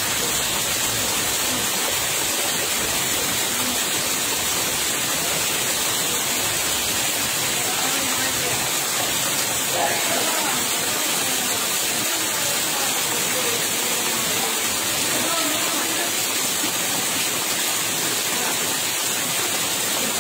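Rain falling onto muddy floodwater, a steady even hiss.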